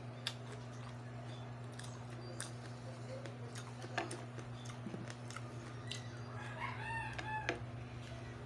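Close-up eating sounds: soft scattered clicks and pops of chewing sea grapes and fingers picking at the plate, over a steady low hum. A rooster crows once, about six and a half seconds in, lasting about a second.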